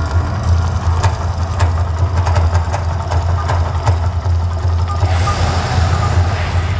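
Mirage volcano eruption show: a loud, deep rumble from the show's sound system, with sharp drum-like hits in the first few seconds. About five seconds in, a rushing whoosh comes in as a fireball erupts.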